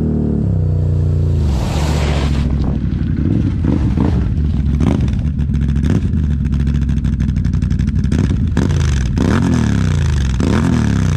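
Can-Am Renegade 1000's V-twin engine through an aftermarket RJWC exhaust: its pitch drops as the quad slows, with a short rush of noise about two seconds in. It then runs at a deep idle, blipped up in short revs several times, most clearly near the end.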